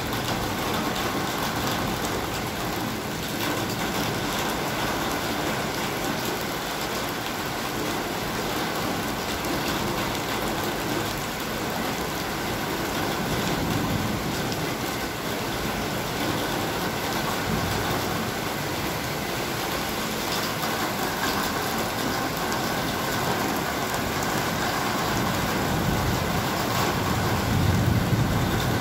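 Heavy rain pouring steadily onto parked cars and pavement, a dense even hiss. A low rumble swells near the end.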